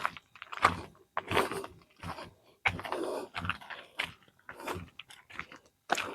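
Footsteps of people walking, short scuffing steps roughly every two-thirds of a second, a little uneven.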